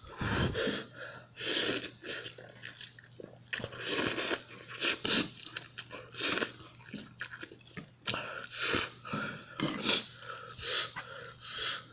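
Close-up chewing of spicy instant ramen noodles: irregular wet mouth sounds, one or two a second, over a faint steady low hum.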